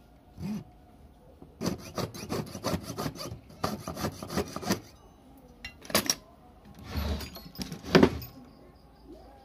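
Jeweller's piercing saw cutting silver against a wooden bench pin: quick, even back-and-forth rasping strokes for about three seconds. A couple of sharp clicks follow, then a shorter run of strokes that ends in a loud knock near the end.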